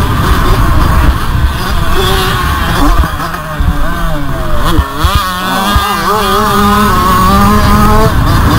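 Motocross bike engine heard from on board, held at high revs. Between about three and six seconds in, the revs drop and rise in quick blips, then it pulls steadily again.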